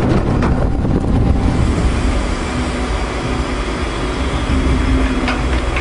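Caterpillar long-reach excavator's diesel engine running steadily under working load, with a few sharp knocks of rock and the steel bucket about half a second in and again near the end.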